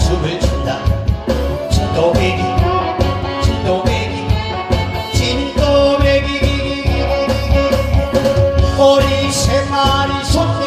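A singer performing a Korean trot song over an amplified backing track with a steady drum beat, with one long held note in the middle.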